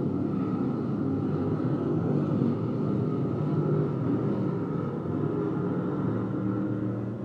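Several dirt-track race car engines running together on the track in a steady, continuous blend, with no single car standing out.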